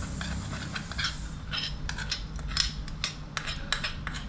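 Steel spoon scraping and clinking inside a small pan, a few irregular strikes and scrapes a second, as the spiced tempering oil is wiped out of it.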